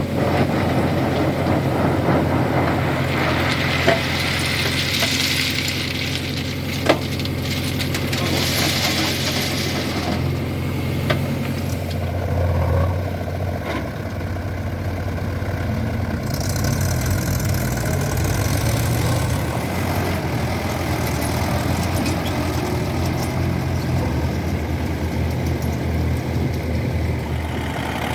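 Heavy diesel engines of working machinery running steadily, with three short, sharp knocks in the first eleven seconds.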